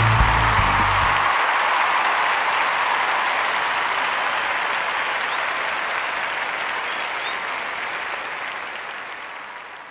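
A crowd applauding, a dense steady clapping that slowly fades away; a backing track ends about a second in.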